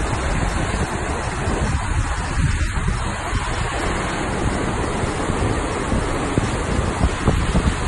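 Steady rush of whitewater rapids pouring over the lip of a waterfall, with wind buffeting the microphone and gusting harder near the end.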